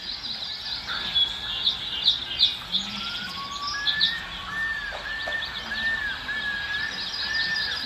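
Birds chirping and whistling: a dense high chirping throughout, joined by a clear whistled note that rises in pitch and then repeats as short arching whistles about twice a second in the second half.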